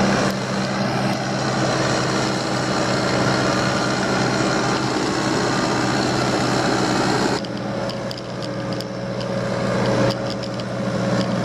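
Heavy diesel construction machinery running steadily, with a deep engine hum under a noisy rumble. The noise eases about seven seconds in.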